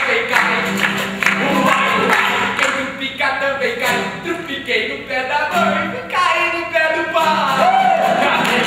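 Several voices singing a song together, accompanied by acoustic guitar and accordion.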